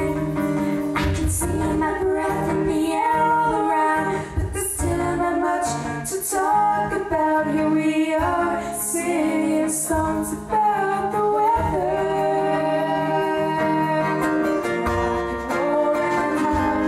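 A pop band playing a song, a woman singing the lead over guitar, bass and drums.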